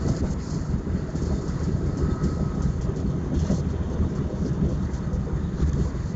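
Tram running along its line, heard from inside the car: a steady low rumble and rattle of the wheels on the rails.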